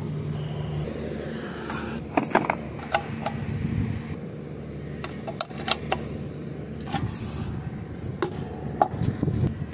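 Open-ended spanner clinking and scraping on the steel mounting bolts and bracket of an LED flood light as it is being unbolted: irregular sharp metal clicks, several in quick pairs, over a low steady rumble.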